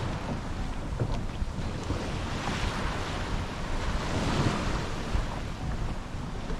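Wind buffeting the microphone over rushing sea water and waves, a steady noise that swells a little a couple of times.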